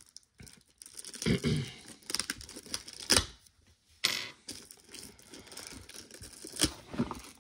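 Plastic shrink wrap being torn and crinkled off a sealed cardboard collection box, in irregular rips and rustles with one sharp rip about three seconds in.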